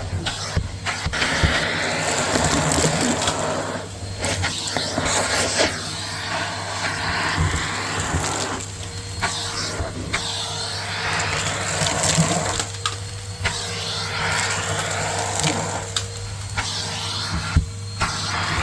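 Vacuum cleaner running while vacuuming stairs, its motor humming steadily under the rush of suction, with scattered crackles of debris being sucked up. The suction noise dips briefly about four times, every four seconds or so.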